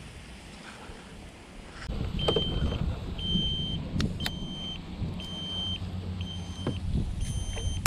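Float boat's electric trolling motor switching on about two seconds in and running with a low steady hum. A short high beep repeats about once a second and a few sharp clicks sound.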